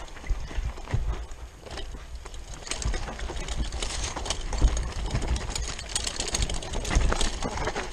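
Rockrider 540s ST mountain bike rattling and clattering as it descends a rough dirt trail over roots and stones, with a constant low wind rumble on the microphone.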